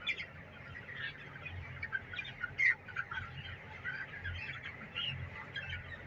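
A flock of broiler chickens chirping and peeping, with many short calls overlapping all the time.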